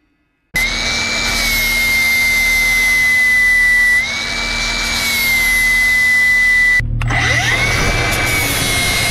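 Angle grinder running at speed against the steel teeth of a forestry mulcher's rotor, a steady high whine that sags slowly in pitch and springs back up about four seconds in. After a short break near seven seconds, the whine climbs back up as the grinder spins up again.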